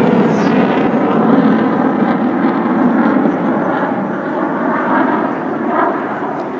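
F-16 fighter jet flying past, a steady jet-engine noise that fades a little near the end.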